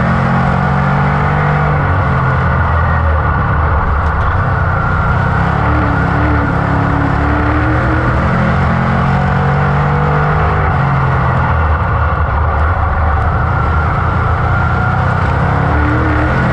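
A dirt modified's GM 602 crate small-block V8 running hard at racing speed, heard from inside the cockpit. The engine note drops and climbs again several times as the car goes around the track.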